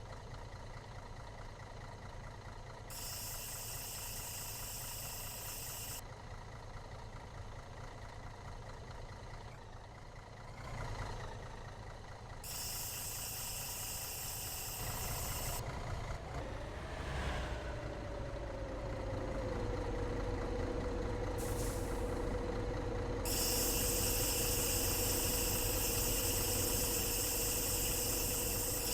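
A vehicle engine running with a steady low rumble. Stretches of high hiss come and go three times. Past the middle a whine falls in pitch and settles into a steady tone that holds to the end.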